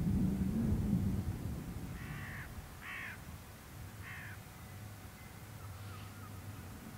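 The fading rumble of Caledonian Railway 812 Class No. 828 steam locomotive and its train receding, dying away within about the first second. Then a crow caws three times, at roughly one-second intervals.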